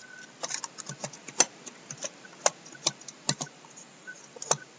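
Typing on a computer keyboard: about a dozen separate, irregularly spaced keystrokes, as a word is typed into a software field.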